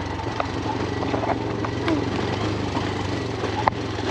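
Motorbike engine running steadily at low revs on a rough dirt track, with scattered small clicks and rattles and one sharper click about three and a half seconds in.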